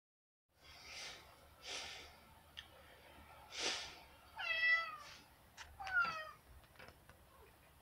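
Domestic cat meowing twice at a closed door, begging to be let outside: a drawn-out meow that falls in pitch, then a shorter one that rises and falls. Before the meows come a few soft breathy sounds.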